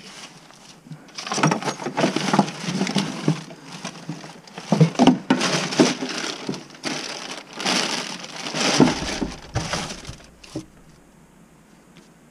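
Gloved hands rummaging through a cluttered cabinet shelf: plastic bags and papers rustling and crinkling in irregular bursts, with a few knocks of items being shifted. It dies down about two seconds before the end.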